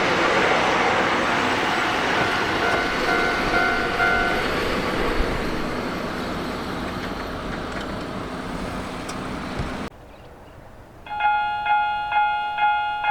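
Electric train running through a level crossing, its wheel noise slowly fading, with a crossing bell ringing faintly over it for a couple of seconds. After a sudden cut and a second of quiet, a Japanese level-crossing alarm starts: an electronic bell striking about twice a second.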